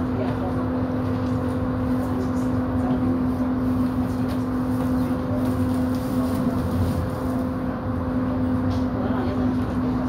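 Cabin sound of an MTR Tung Chung line A-train running between stations: an even low rumble from the track with a steady hum held at one pitch.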